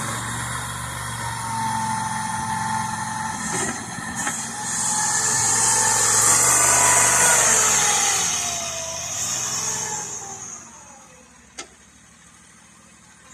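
AGT XZ20R mini excavator's 23 hp gasoline engine running while its hydraulics work, with a whining tone that slides up and down in pitch and a loud hiss in the middle. About ten seconds in the sound drops away to much quieter, and a single sharp click comes near the end.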